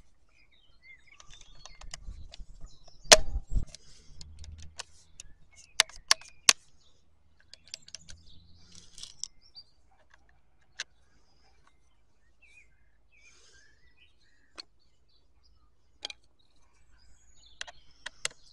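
Plastic housing of a Stihl MSA 120 C battery chainsaw being handled and unscrewed with a screwdriver: scattered clicks and knocks, the loudest a thump about three seconds in. Birds chirp in the background.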